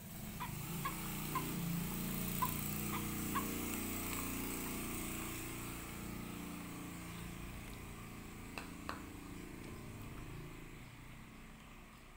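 A motor vehicle's engine running past, swelling over the first few seconds and then slowly fading away, with a string of short high chirps over it early on and two soft clicks later.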